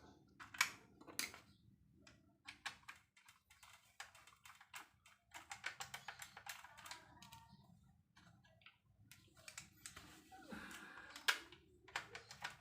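Irregular run of small, sharp plastic clicks and taps as the washing machine's control-panel parts and button lenses are handled and refitted, with one louder click near the end.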